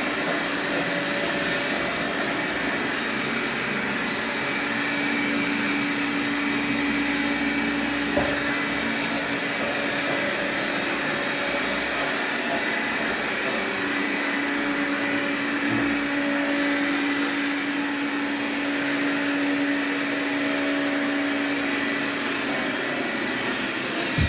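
Xiaomi Mi Robot Vacuum Mop running with a steady whir, and a low hum that comes and goes twice.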